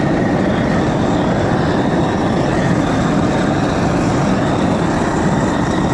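Handheld gas torch flame blasting steadily against red cedar wood, a loud even rush as it scorches the carved surface.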